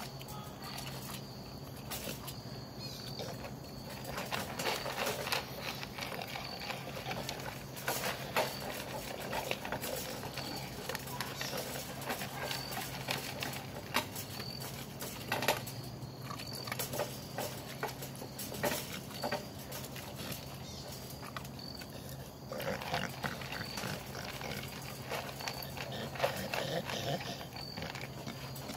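American Bully dog eating dry kibble fast from a bowl: irregular crunching and chomping all through, with snuffling at the food.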